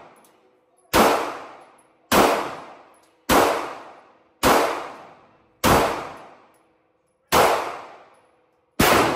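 Seven single 9 mm handgun shots fired slowly, about one every second and a quarter, each with an echoing tail.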